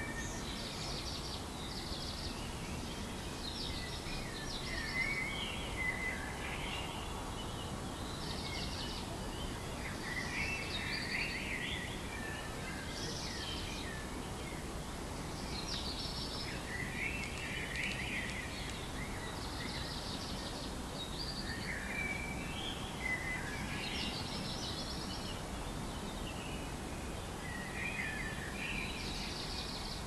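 Songbirds singing at dawn: short, rapid phrases repeated every few seconds, over a steady background hiss and low rumble.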